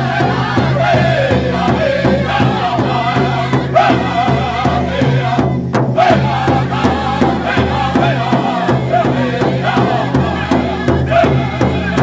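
A drum group singing together in a high, wavering chant over a steady, even drumbeat.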